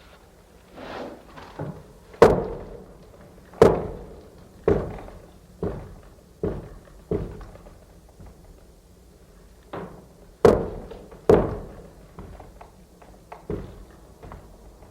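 Heavy wooden church door banging and knocking again and again: a series of sharp thuds, each dying away over a fraction of a second. The loudest come a little after two seconds, after three and a half seconds and around ten and a half and eleven seconds, with softer knocks and a brief creak between.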